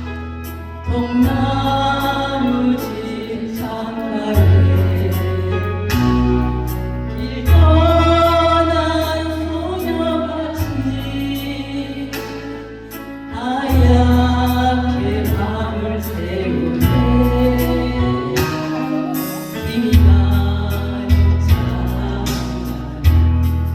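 A solo singer performing a slow Korean ballad over instrumental accompaniment with a strong, sustained bass line.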